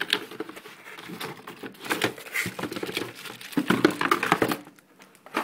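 Packaging rustling and crinkling, with scattered small knocks, as a keyboard's wrist pad is taken out of its box.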